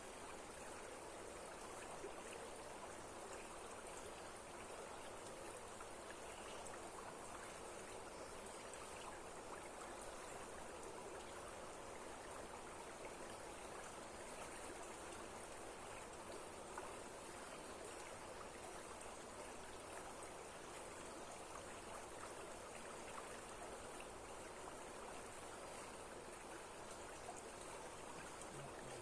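Waterfall water rushing in a steady, even stream of noise.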